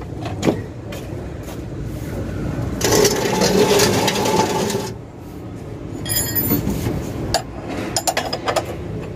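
A metal can scraping across the floor for about two seconds, with scattered clicks and knocks of work under a truck before and after.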